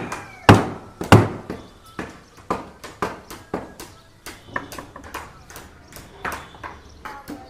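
Construction work: a run of sharp knocks and taps, like hand tools striking, about two a second and irregular, with the loudest two about half a second and a second in.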